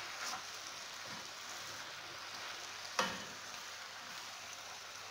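Chopped spinach sizzling gently in a granite-coated pan over low heat as a wooden spoon turns it, with a sharp knock of the spoon against the pan about three seconds in.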